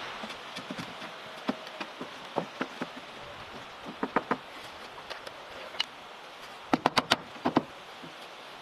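Scattered sharp knocks and clicks at irregular intervals, a few in quick runs of three to five, over a faint steady hiss.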